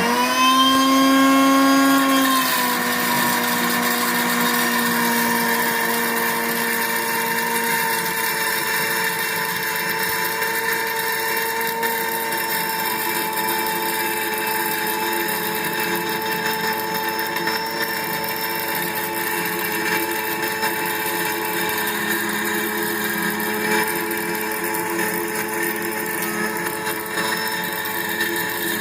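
Electric home flour grinder (Instagrind) motor running at high speed, grinding a mix of wheat, sorghum and finger millet into flour. A steady high whine whose pitch dips slightly about two seconds in and then holds.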